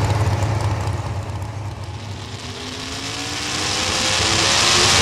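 Supercharged engine of a Pro Stock four-wheel-drive pulling truck: a low rumble that drops away about two seconds in, then revving up with its pitch rising and growing louder as the truck pulls the sled.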